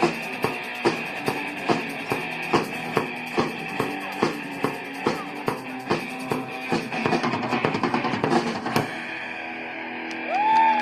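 A rock band playing an instrumental passage: a drum kit keeps a steady beat of about two hits a second under guitar, speeds into a drum fill and ends on a final hit about nine seconds in. The sound fades out, and near the end a voice rises.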